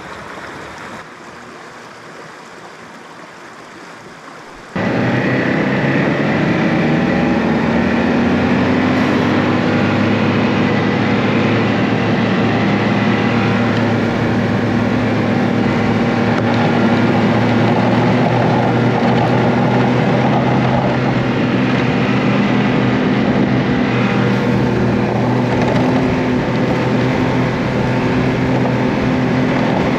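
A small stream running for about the first five seconds. Then a snowmobile engine cuts in suddenly and runs at a steady cruising speed.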